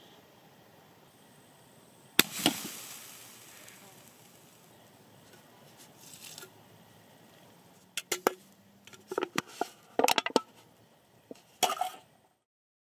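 Two sharp pops about two seconds in, followed by a hiss that slowly fades. Later, a run of sharp clicks and knocks as the scorched aluminium soda can is handled and set down on the burnt match heads on the stump.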